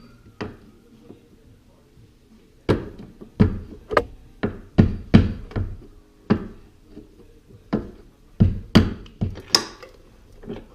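A mallet striking a new hinge bushing into the door hinge of a 1995 GMC Sierra, about a dozen sharp knocks at an uneven pace of roughly two a second, starting a few seconds in.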